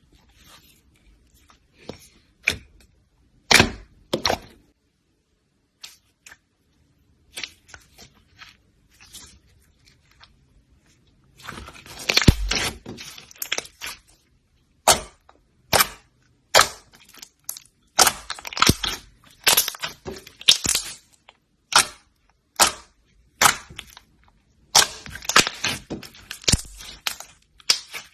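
A series of sharp cracks and snaps at irregular spacing, sparse at first, then coming thick and fast for a few seconds about twelve seconds in, and frequent after that.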